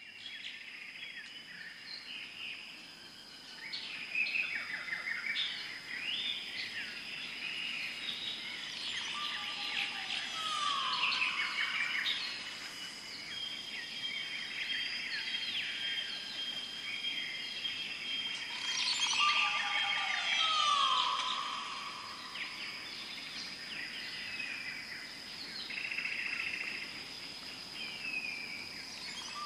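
Jungle ambience of many birds chirping and trilling over a steady high insect drone. A falling call comes three times at even spacing, which suggests a looped recording.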